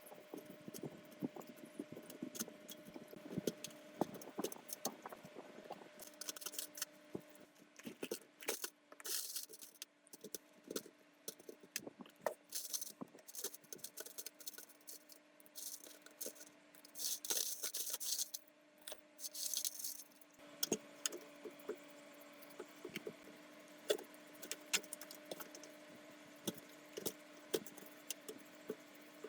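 Hand work on metal parts: repeated clicks, clinks and rattles with bursts of scraping, over a faint steady hum.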